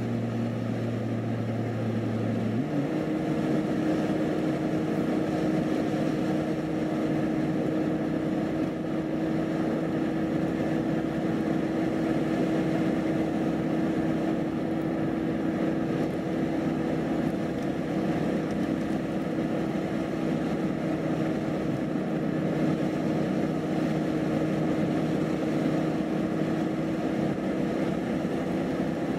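Car driving on a paved highway, heard from inside the cabin: steady engine and tyre noise. About two and a half seconds in, the engine's low hum gives way to a steady higher tone.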